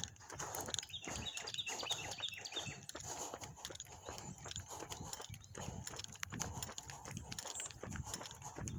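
Heavy breathing of a runner through a breathing-training mask, each breath a rough puff of air, over a steady run of footfalls.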